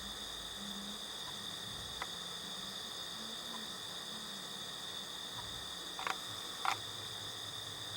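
Night insect chorus of crickets, a steady high-pitched drone, with a few faint short clicks, two of them close together about six to seven seconds in.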